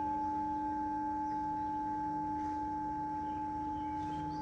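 Singing bowl ringing with a steady low tone and a few higher overtones, fading very slowly.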